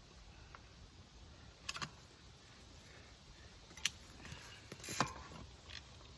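Scattered metallic clicks and short rattles from mountain bike parts being handled as the rear wheel is worked off, with a cluster near the start, another about two thirds of the way in, and the loudest click among them.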